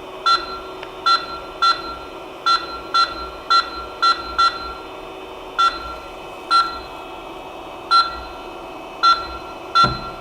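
Creality CP-01 control panel beeping at each button press, about thirteen short identical beeps at uneven intervals as the laser head is jogged into position, over a steady hum.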